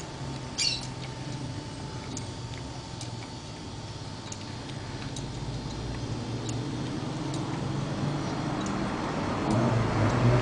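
Motorized cutaway Honda single-cylinder motorcycle engine model turning over slowly, its drive and exposed gears giving a steady low mechanical hum with a light tick about once a second. A brief squeak comes just under a second in, and the hum grows louder near the end.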